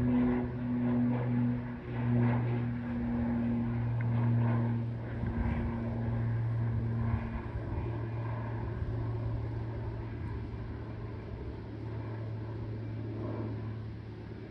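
Beech B200 Super King Air's twin Pratt & Whitney PT6A turboprops in the climb-out: a steady low propeller hum that fades as the aircraft moves away.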